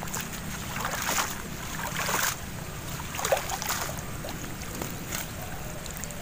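Water splashing and dripping as a mesh keep net is dipped in and lifted out of the river shallows, in a few short bursts over a steady low background of wind.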